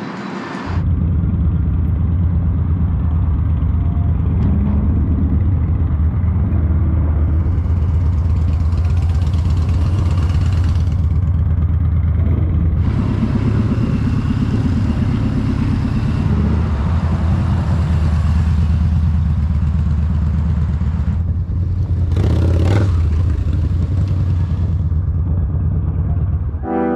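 Yamaha Bolt's air-cooled V-twin engine running steadily at cruising speed, heard from the riding motorcycle with wind rushing over the microphone; about 22 seconds in the rush of noise briefly swells.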